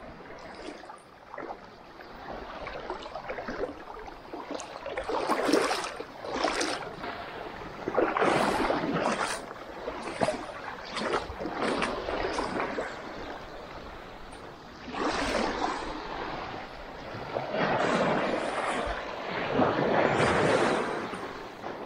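Small waves washing and splashing on a sandy, rocky shore, in uneven swells every few seconds, with wind on the microphone.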